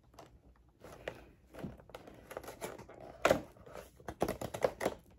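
Cardboard cheese advent calendar door torn open and the packaging handled: an irregular run of crackles, crinkles and small tearing sounds, the loudest about three seconds in.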